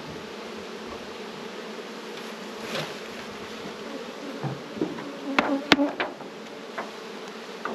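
Honeybees buzzing around an opened hive, a steady hum. A few sharp knocks and clicks about two-thirds of the way through as the hive boxes are handled.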